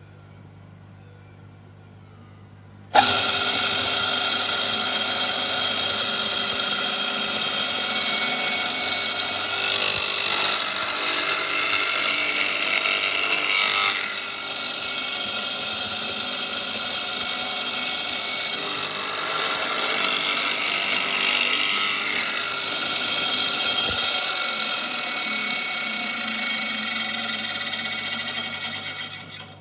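Robinson WH/E hollow-chisel mortiser starting suddenly about three seconds in and running with a steady whine while its auger and hollow chisel bore a mortise in a timber, then winding down near the end.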